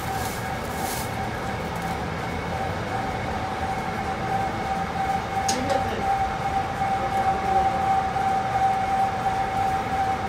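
A workshop machine running steadily, with a constant high-pitched whine over a mechanical rumble that grows a little louder in the second half.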